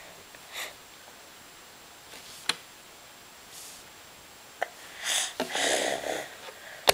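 A child grinding his teeth: a few short rasping bursts and sharp clicks, the longest rasping stretch about five seconds in.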